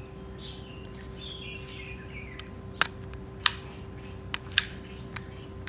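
Birds chirping faintly in the first couple of seconds, then about five sharp clicks in the second half as the disassembled drill's parts are handled, over a steady faint hum.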